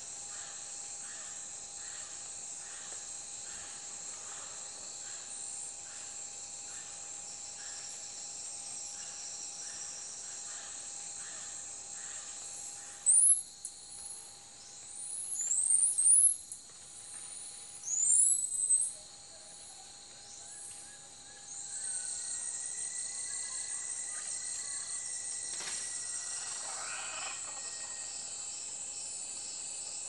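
Steady high chirring of crickets or other insects, with a bird giving a quick series of loud, high, upward-sweeping whistled calls between about 13 and 19 seconds in.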